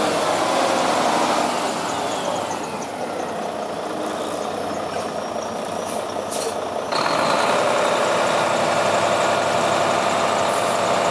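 Volvo VNM64T day-cab truck's diesel engine idling steadily. A brief hiss comes about six seconds in, and the engine sound gets louder about a second later.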